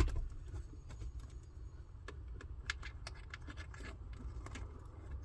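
Irregular small clicks, taps and scrapes of hands fumbling around under a car dashboard, feeling for a small screw, with a sharper click right at the start.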